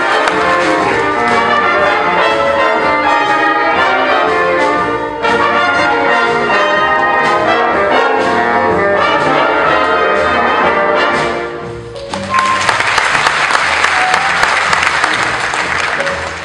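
Big band of saxophones, trumpets, trombones, upright bass and piano playing a loud ensemble passage that ends about two-thirds of the way through, followed by audience applause.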